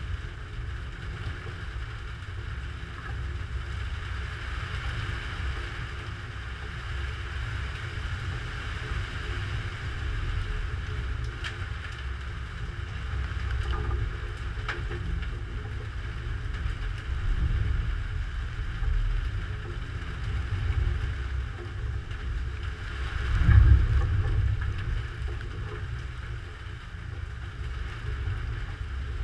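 Thunderstorm heard through a GoPro Hero3 Black's microphone: a steady low rumble with hiss above it, and a louder, deep thunder rumble swelling and fading about twenty-three seconds in.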